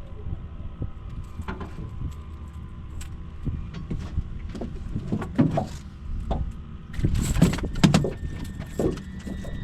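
Wind rumbling on the microphone, with a few louder gusts and scattered clicks and rattles.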